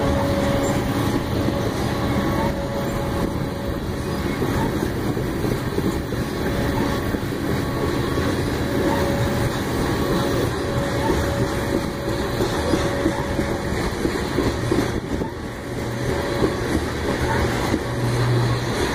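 Freight train of covered hopper cars rolling past, its steel wheels running on the rails in a steady rumble and clatter, with a thin ringing tone from the wheels and rails that comes and goes.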